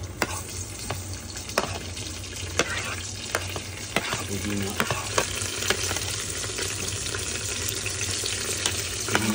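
Browned onions and whole spices sizzling in an Instant Pot's inner pot on sauté mode, with a metal spoon clicking and scraping against the pot a dozen or so times as mint leaves are pushed in and stirred.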